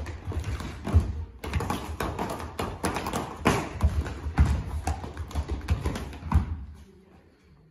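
Dancers' shoes tapping and stamping in a group on a plastic floor sheet: an irregular run of taps and heavy thuds that thins out and fades near the end.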